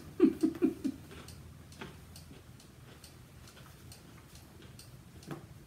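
Wall-hung cuckoo clock ticking steadily, faint even ticks, after a brief bit of voice at the start.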